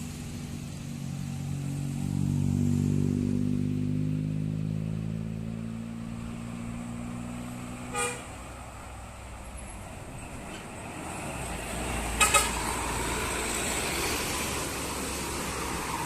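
A heavy road vehicle's engine passing, loudest a few seconds in and sliding down in pitch as it fades. Then one short horn toot, and a few seconds later two quick toots, as more traffic comes closer.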